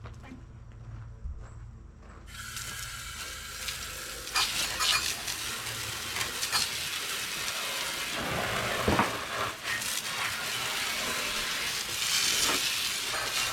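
Pressure washer spray hissing against a John Deere 60-inch mower deck, starting abruptly about two seconds in, with an uneven, spattering hiss as the jet moves over the metal.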